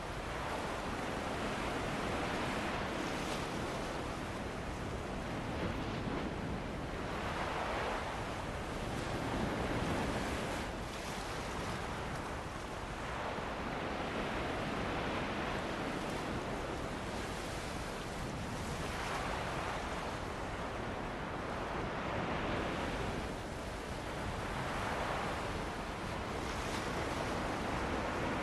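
Sea waves breaking and washing up a beach, swelling and ebbing every few seconds, with steady wind blowing over them.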